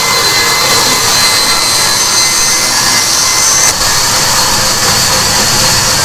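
Band saw running and ripping a wooden plank: a steady, loud hissing whine, with a brief dip a little over halfway through.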